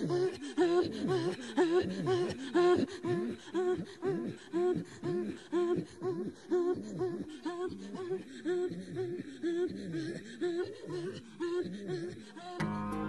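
Inuit throat singing (katajjaq): two women facing each other trade quick, rhythmic pulses of voice and breath, about two a second, repeating the same pattern over and over. Near the end it fades and music with plucked notes comes in.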